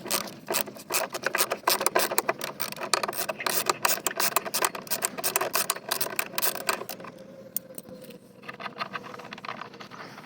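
Hand ratchet wrench clicking rapidly as nuts are backed off the bolts of an air-conditioner compressor. The clicking stops briefly about seven seconds in, then starts again.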